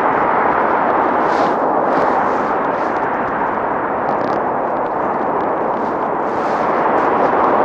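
Wind buffeting the camera's microphone while riding an electric unicycle on a windy day: a steady, dense rush of noise with no breaks.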